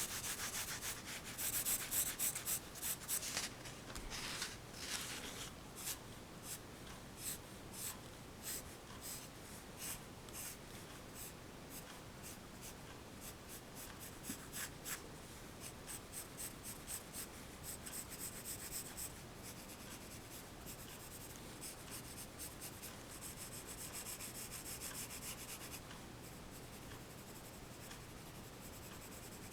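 Pencil scratching on paper in quick, repeated sketching strokes. The strokes are heaviest in the first few seconds, then lighter, with denser runs of shading strokes later on.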